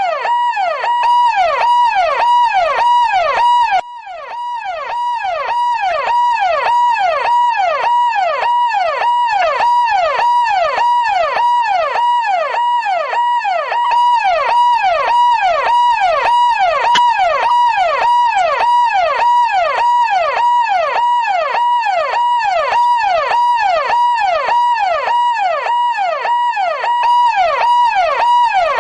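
Police car siren in a fast yelp pattern, its pitch rising and falling about two to three times a second, with a short dip in level about four seconds in.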